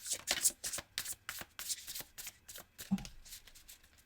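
A tarot deck being shuffled by hand: a quick, irregular run of crisp card slaps and riffles, with one soft low knock about three seconds in.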